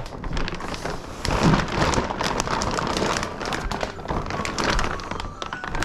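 Dense crackling and rustling noise made of many quick clicks, steady in level throughout.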